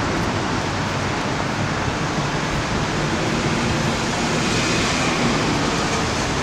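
Steady outdoor wash of city traffic noise mixed with wind, with no distinct events.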